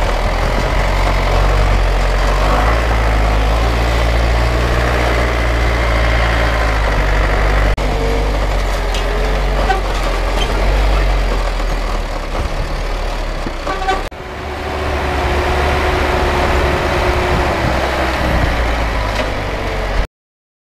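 Truck engine running with a steady low drone. The sound breaks off abruptly twice and cuts off suddenly near the end.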